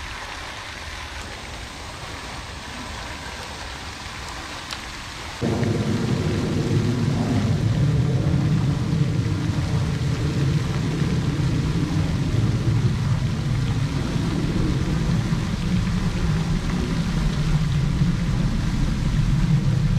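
Steady splashing hiss of a pond's fountain jet falling back onto the water, with wind rumbling on the microphone. About five and a half seconds in the sound jumps suddenly louder and becomes a steady low rumble.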